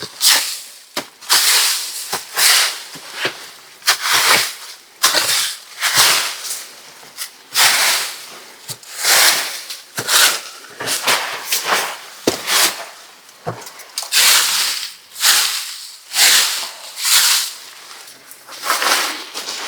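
Dry leaves rustling and crackling in a run of repeated sweeps as they are pushed along the floor in piles.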